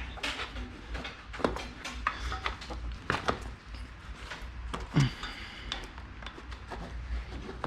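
A bicycle tire being worked off its rim by hand: irregular clicks, knocks and scrapes of rubber, rim and tools. A few short squeaks slide down in pitch, over a steady low hum.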